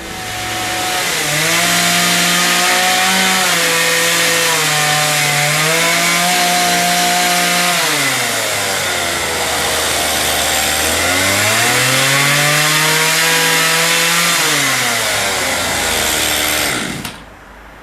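Two-stroke chainsaw revving up and running at high speed, dropping back to a low speed about 8 seconds in, revving up again a few seconds later, then dropping and cutting off near the end.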